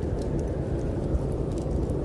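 Snowstorm wind blowing as a steady, deep rumble, with faint scattered crackles of a wood fire burning in a fireplace.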